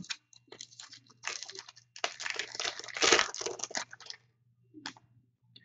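Crinkling and crackling of a foil trading-card pack wrapper being torn open and handled, in a run of short crackles lasting about three seconds.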